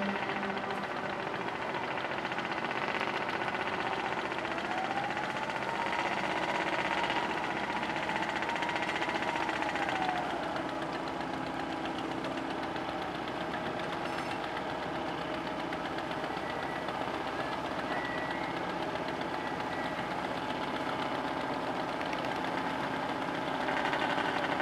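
A river passenger ferry's engine running steadily, heard from on board a moving vessel. Partway through, a faint tone rises and then falls in pitch over the hum.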